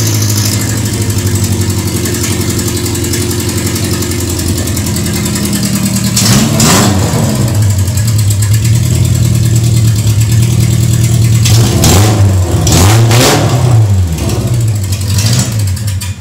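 Suzuki Jimny's four-cylinder petrol engine running loud with no exhaust fitted, just after its first start following a clutch replacement. It idles steadily and is revved briefly four times: once about six seconds in and three times in quick succession near the end.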